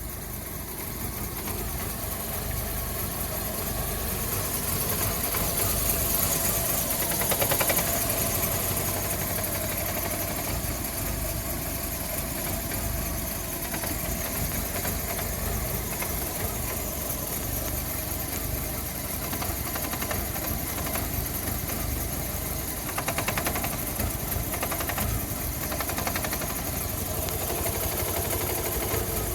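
Volkswagen Fox 1.4 engine idling roughly, with an uneven, shaky running note that swells louder briefly a couple of times.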